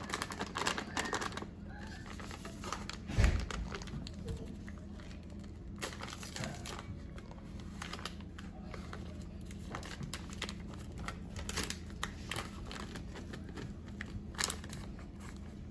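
A bag of cornstarch crinkling in a series of irregular crackles as it is squeezed and shaken over a bowl of shredded vegetables. There is a dull thump about three seconds in.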